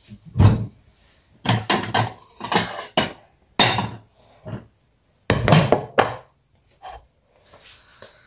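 A series of knocks and thumps on a kitchen worktop as crockery is handled, with a plate set down. They come irregularly, about eight in all, and the loudest are around half a second and five and a half seconds in.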